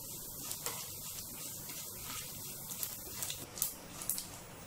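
Hot oil sizzling in a frying pan as mustard seeds, cumin and lentils are roasted for a tadka and stirred with a spoon. A steady hiss with a few sharp crackles scattered through it.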